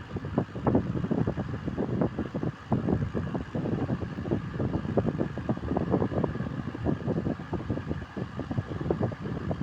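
Wind buffeting the microphone: a continuous low rumble broken into rapid, irregular gusts.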